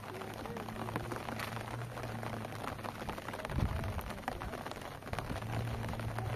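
Rain falling, with many scattered drop ticks over a steady hiss, and a steady low engine hum underneath. A single low thump a little past halfway through.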